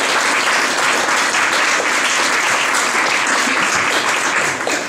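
Audience applauding, dense steady clapping that dies down near the end.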